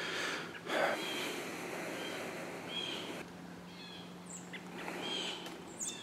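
A short breathy puff of air about a second in, then a few faint, short bird chirps over a background hiss.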